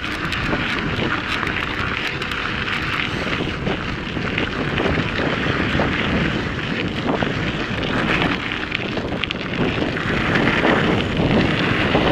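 Mountain bike rolling fast along a dirt trail, its tyres crunching over gravel and the bike rattling, with wind rushing over the microphone.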